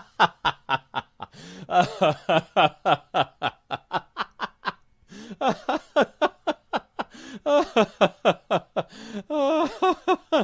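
Laughter: a voice laughing in quick runs of short ha-ha pulses, several a second, with a short break about halfway through.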